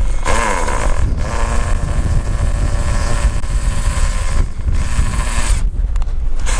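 Skil cordless drill whirring as it bores into a rain gutter. It runs for about four seconds, stops, then runs again twice briefly. Wind rumbles on the microphone throughout.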